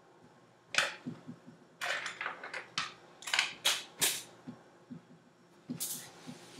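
Hair being brushed and handled during styling: a run of about eight short, sharp rustling strokes at irregular intervals, most of them in the first four seconds, with soft knocks underneath.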